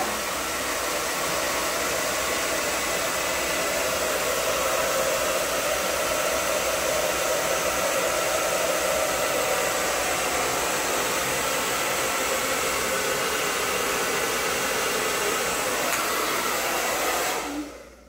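Handheld hair dryer running steadily on one setting, then switched off near the end, its noise dying away quickly.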